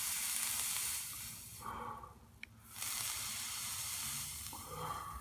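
Atomizer's Kanthal coil sizzling as the Snow Wolf 200 W box mod fires it at 150 watts, in two stretches with a short pause between.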